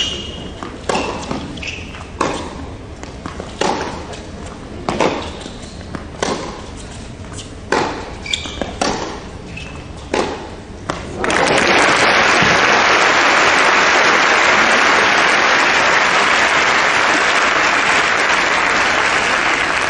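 Tennis rally on a hard court: racket strikes on the ball go back and forth about every second and a half. About eleven seconds in, the rally ends and a crowd applauds steadily.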